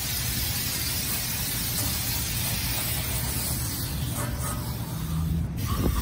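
Hose-fed coil-cleaner spray gun spraying foaming cleaner onto a dirty AC condenser coil: a steady hiss that thins out about four seconds in, over a steady low hum.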